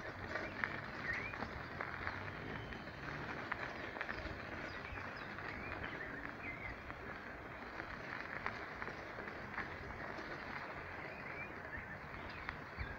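Outdoor ambience on a dirt path: a steady hiss with short, rising bird chirps scattered throughout, and irregular footsteps on the dirt and gravel.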